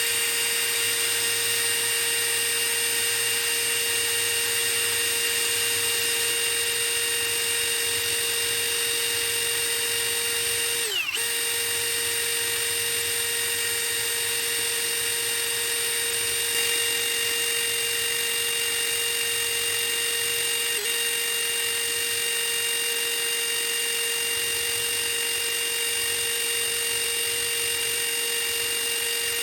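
Electric drill running steadily with a brass wire brush bit, scrubbing the aluminium fuse of a 37mm anti-tank shell. Its steady whine dips briefly twice, about eleven and twenty-one seconds in.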